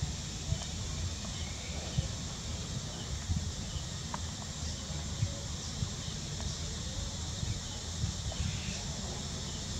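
Outdoor background with a steady high drone of insects, under an uneven low rumble with light thumps from time to time.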